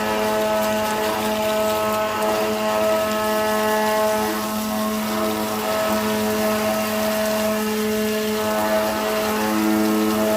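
CNC router spindle running at a steady speed with an even, pitched hum and whine as it cuts stone.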